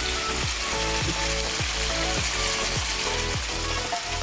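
Chicken breast pieces frying in oil in a pan, sizzling steadily just after a splash of vinegar is added, with background music that has a steady beat underneath.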